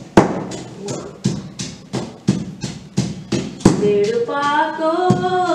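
Wooden pestle pounding in a stone ukhal (mortar), about three thuds a second. From about four seconds in, a woman begins singing.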